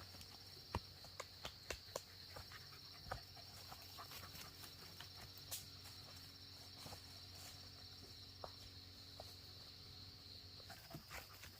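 Insects chirring steadily at a high pitch, with scattered light clicks and knocks throughout.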